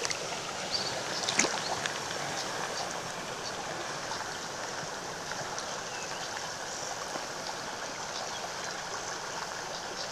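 Shallow rocky mountain stream running steadily over stones, with a couple of brief sharp sounds in the first second and a half.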